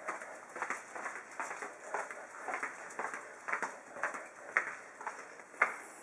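Footsteps on a hard tile floor: sharp clicks or taps about twice a second, some of them coming in quick pairs.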